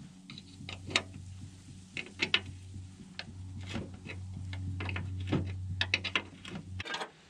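A ratchet wrench clicks, with sharp irregular metal clinks, as the bolts of the conveyor roller's bearing housing are worked loose to take out a worn-out bearing. A steady low hum runs underneath and cuts off near the end.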